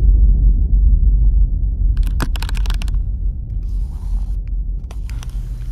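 Low rumble on the microphone, loud at first and slowly fading, with a few short clicks and rustles about two seconds in and again near the end.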